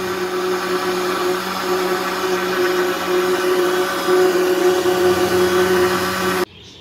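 Electric countertop blender running on a jar of mango milkshake, its motor holding a steady pitch, then switched off, cutting out suddenly near the end.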